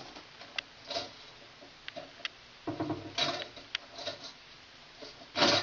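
Scattered light clicks and ticks of a wire being worked onto a three-way light switch's screw terminal by hand, with a louder knock or scrape near the end.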